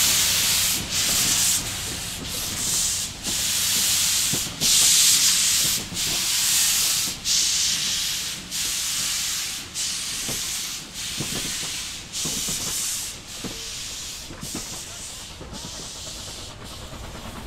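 Reading & Northern 2102, a 4-8-4 steam locomotive, working steam: a steady beat of sharp, hissing exhaust chuffs about one a second, growing fainter toward the end.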